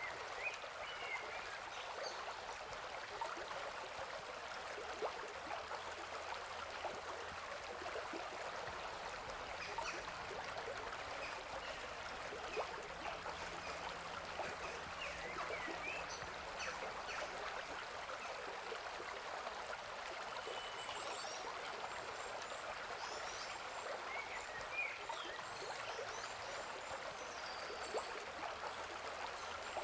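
Stream water flowing and splashing over rocks in a steady rush, with occasional short high chirps.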